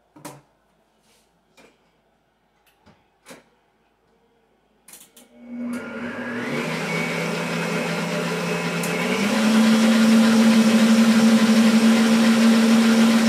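A few light knocks from kitchen things being handled, then an electric stand mixer switched on about five seconds in. Its motor runs steadily and steps up in speed and loudness, once shortly after starting and again about nine seconds in.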